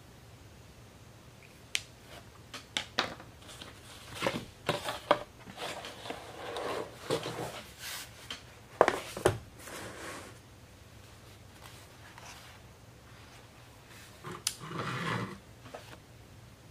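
Sketchbooks being handled on a table: a scatter of light taps and knocks with paper and covers rustling and sliding, busiest through the middle, and a brief rustle again near the end.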